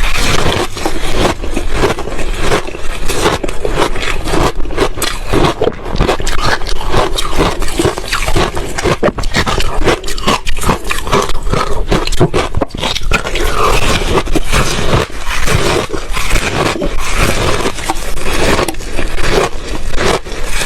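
Ice being crunched and chewed close to the microphone: a dense, continuous run of sharp cracks and crunches.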